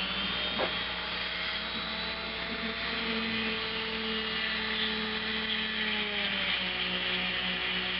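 Dremel rotary tool with a small wire brush running steadily, its pitch shifting a little as it works against the kill switch's contacts, polishing off oxidation so they make a good connection.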